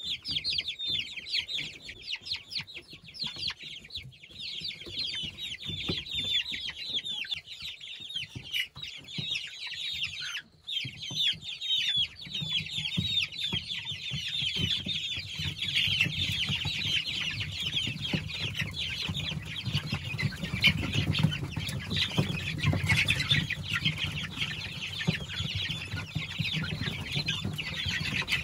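Dozens of young chickens and ducklings peeping and cheeping without pause, many short high calls overlapping. A low steady hum joins underneath about halfway through.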